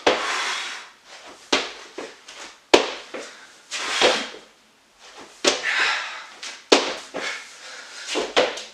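Burpees on a wooden floor: a series of thuds as hands and feet land and the jump comes down, about one every second or so, with hard breathy exhales between them.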